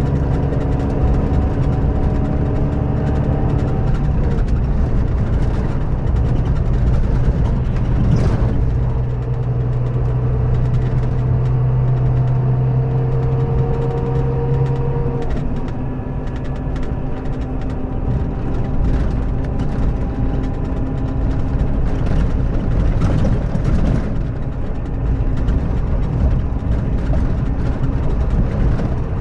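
Scania K400B coach's diesel engine running at steady revs, its tone shifting about four seconds in and again about halfway through.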